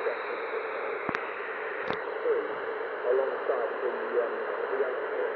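Icom IC-M802 marine HF transceiver receiving in AM mode on the 5 MHz band: steady band-noise hiss with faint wavering tones of weak signals. Two sharp clicks come about a second in and again just under two seconds in.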